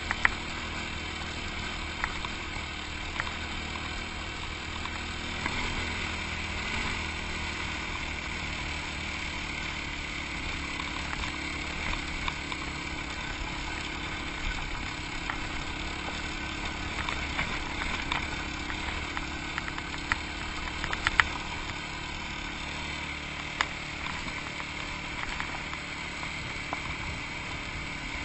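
Yamaha WR250X's single-cylinder four-stroke engine running steadily while the bike is ridden, with scattered short, sharp ticks and knocks over it.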